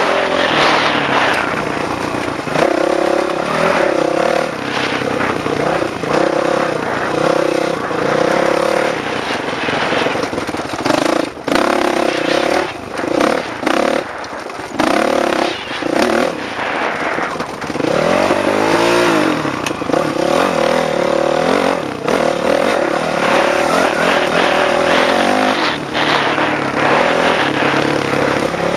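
Dirt bike engine running hard on a motocross track, its pitch stepping up and down as the rider works the throttle and gears. The engine briefly drops off several times in the middle and swoops up and down a little past halfway. A rushing noise runs underneath.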